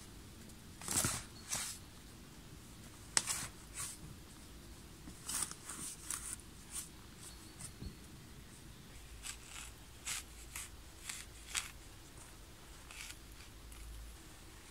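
Steel shovel blade scraping and crunching into sandy forest soil: an irregular series of short, crisp scrapes about one to two a second.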